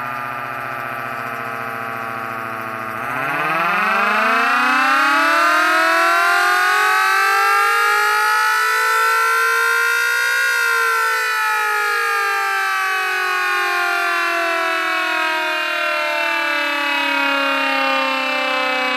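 Federal Signal Model 77 mechanical siren: a steady low drone for about three seconds, then it winds up in a smooth rising wail that peaks about ten seconds in, then slowly winds down in pitch.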